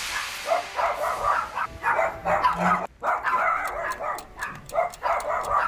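Small dogs barking and yapping in quick, repeated bursts, with a brief break about three seconds in.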